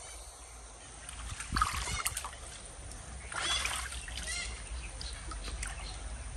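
Shallow muddy water splashing and sloshing in a couple of short bursts, from hands and a bucket working in the water.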